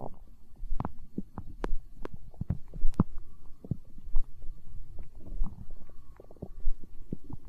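Human stomach gurgling and rumbling from hunger: a run of irregular gurgles with several sharp pops, the loudest about three seconds in.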